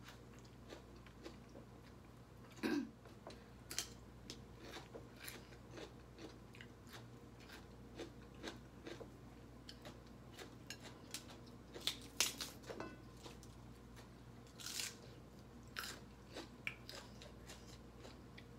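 A person chewing a mouthful of Lao noodle salad close to the microphone: irregular wet mouth clicks and smacks, with a few louder ones here and there.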